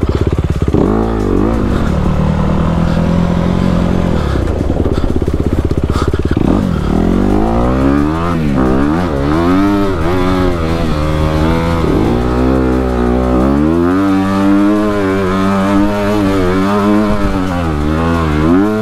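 Honda CRF250RX dirt bike's single-cylinder four-stroke engine revving under hard riding: fairly steady for the first several seconds, then its pitch rises and falls over and over as the throttle is opened and closed.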